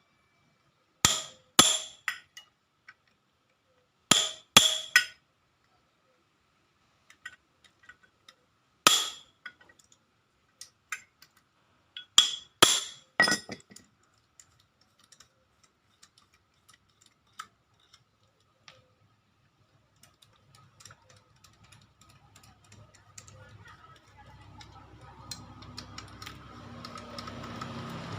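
Sharp, ringing metallic clinks of metal tools or parts striking each other, several in quick pairs and threes during the first half. Near the end a low engine sound rises.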